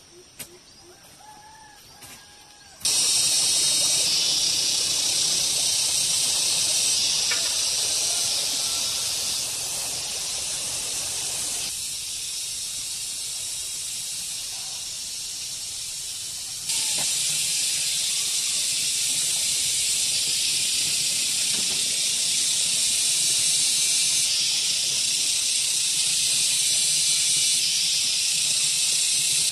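A loud, steady, high-pitched drone of an insect chorus in the forest, starting abruptly about three seconds in and dipping somewhat midway before coming back. A few faint bird chirps come before it.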